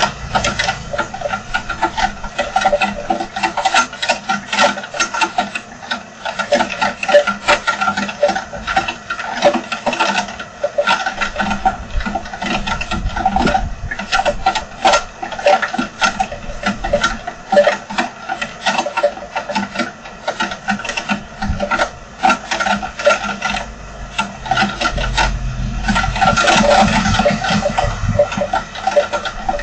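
Heavy rain drumming in a dense, uneven patter of sharp hits, driven by wind; it swells louder for a few seconds near the end.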